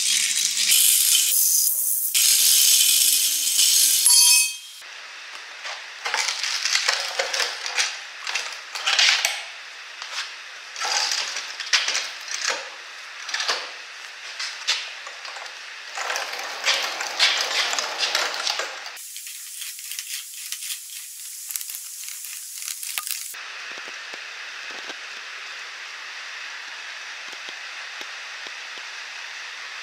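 Loud hissing for the first few seconds, then the small caster wheels of steel snowmobile ski dollies rolling and rattling over a rough concrete floor in a string of short pushes, about one a second, ending in a steady faint hiss.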